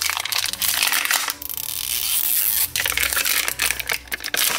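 A thin plastic wrapper being peeled and torn off a plastic capsule ball, crinkling and crackling, with a brief lull about a second and a half in.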